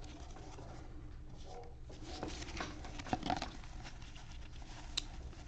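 Trading cards being handled and sorted by hand: soft rustling and sliding of cardboard cards, busiest about three seconds in, with one sharp click near the end.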